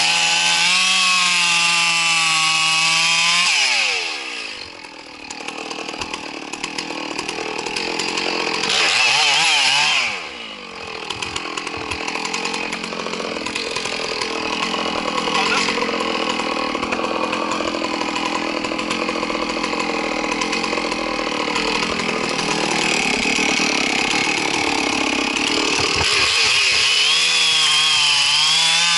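Chainsaw revving at full throttle, easing off twice in the first ten seconds, then running with a lower, rougher note through a long stretch as it cuts into the tree, before revving high and steady again near the end.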